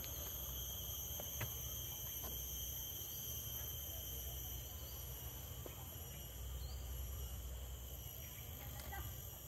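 Steady, unbroken high-pitched insect chorus from the wetland vegetation, over a low rumble.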